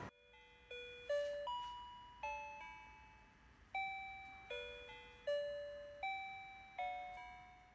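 Baby crib mobile's electronic music box playing a slow lullaby, one chime-like note at a time, each ringing and fading before the next.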